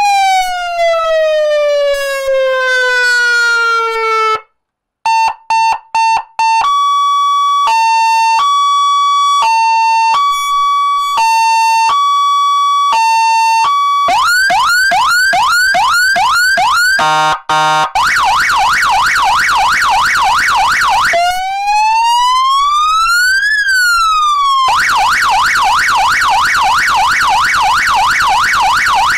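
Cheap 100-watt seven-tone electronic vehicle siren sounding loudly through its horn speaker and switched from tone to tone: a long falling whistle, a few quick pulses, a hi-lo two-tone, rapid rising sweeps, a fast yelp, a single slow rise and fall, then the fast yelp again.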